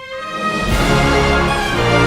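Theme music starting up, swelling to full level within about half a second and carrying on with a steady beat.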